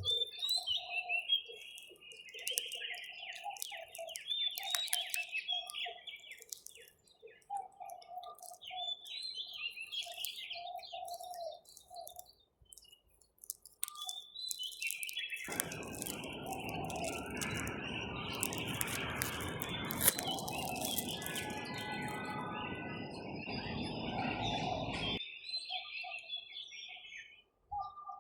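Birds chirping and calling, with many quick high chirps over repeated lower call notes. From about fifteen seconds in, a steady rushing noise joins for about ten seconds and cuts off abruptly.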